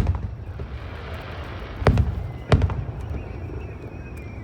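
Fireworks shells bursting: a bang right at the start, then two more about two seconds in, half a second apart, each followed by a low rumble.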